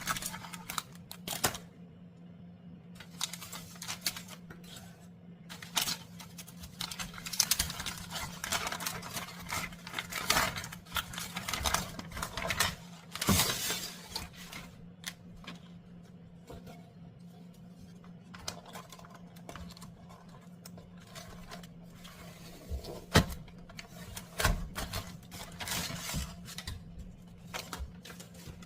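Irregular light clicks, taps and clatter of small hard objects being handled, over a steady low hum. The loudest knocks fall about a third of the way in and again near the end.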